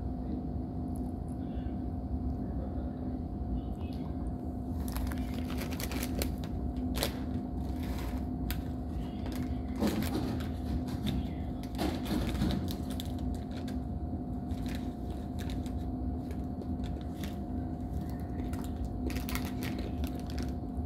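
Plastic snack packet crinkling and crackling in quick runs of sharp clicks, mostly in the middle of the stretch and again near the end, over a steady low hum.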